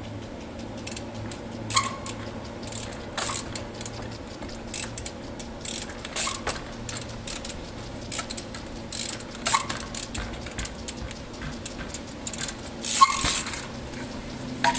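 Trials mountain bike hopping onto and off wooden pallets. The freewheel ratchets in short clicking bursts, and sharp knocks from the tyres and frame come irregularly, a few of them ringing briefly. The loudest clatter comes near the end.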